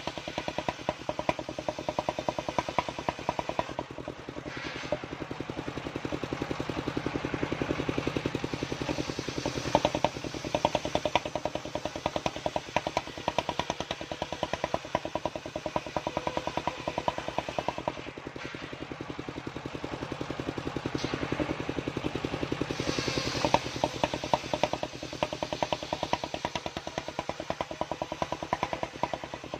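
Engine-driven circular sawmill (mesin serkel) running under load as its blade rips a waru log into battens. The engine pulses in a fast steady rhythm with the blade's hiss through the wood over it, swelling in louder spells about a third of the way in and again about three-quarters through.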